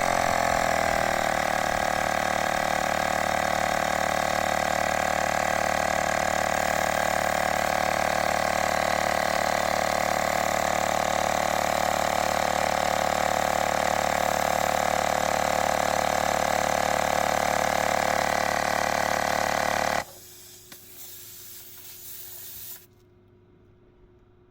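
Portable electric tyre inflator pumping air into a bicycle's rear tyre, its small motor and piston running with a steady hum set to a 45 PSI target, then cutting off abruptly about 20 seconds in. A few faint handling sounds follow.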